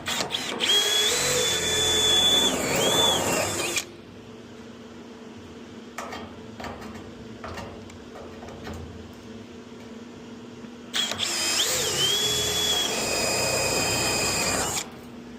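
Power drill with a spot weld cutter cutting out spot welds in a car body's sheet-steel quarter panel, in two runs of a few seconds each, about ten seconds apart. Its high whine wavers and dips as the cutter bites. A few light knocks fall in between the two runs.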